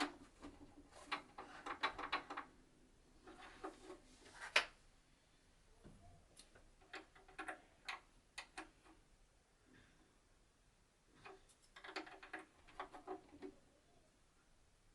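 Faint scattered clicks and light taps in small clusters, from small parts of a Singer 8280 sewing machine being handled and set back in place.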